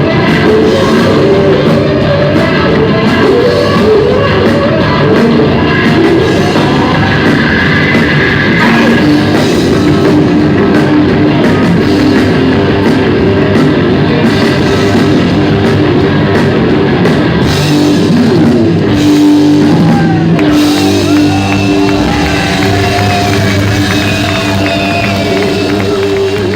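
Rock band playing live and loud in a large hall, with singing, electric guitars and a drum kit. About twenty seconds in the drums stop and the guitars ring on in long held tones as the song winds down.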